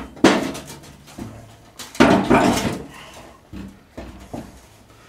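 Hammer blows on a punch, driving a new ball bearing up into a mower deck's cutter spindle housing. There are two hard metallic knocks about a second and a half apart, then a few lighter taps.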